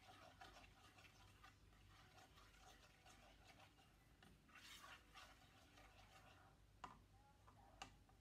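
A plastic spoon stirring chicken in a nonstick frying pan: faint scraping and small ticks, with a short rush of noise midway and two sharp taps of the spoon against the pan near the end.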